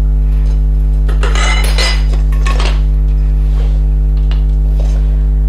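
Metal kayak frame tubes clinking and knocking against each other and a wooden floor as they are picked up and laid out, several separate clinks. Under them runs a loud, steady low electrical hum.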